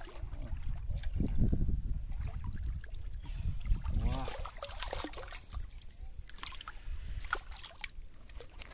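Shallow water sloshing and splashing as a hooked catfish thrashes at the surface and is pulled up out of the water on the line, with a low rumble underneath and several sharp splashes.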